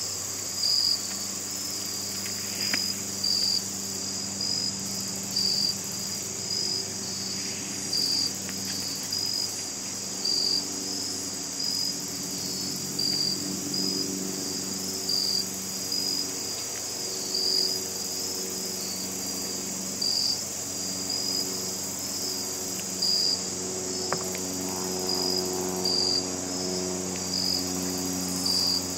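Insects, crickets by the sound of it, singing in a steady high-pitched trill with a louder chirp repeating about once a second.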